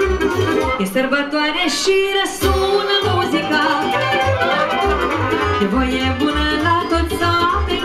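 A live band plays an upbeat folk dance tune for a circle dance, over a steady bass beat. The bass drops out briefly about two seconds in, then the beat comes back.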